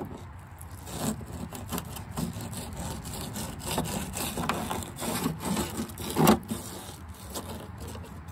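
Fillet knife sawing and scraping between skin and flesh against a plastic fillet board while skinning a whiting fillet, in a run of short strokes, with one louder stroke about six seconds in.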